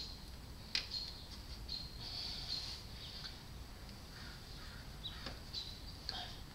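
Small birds chirping in the background, short high notes repeating, with a few light clicks about a second in and again near the end.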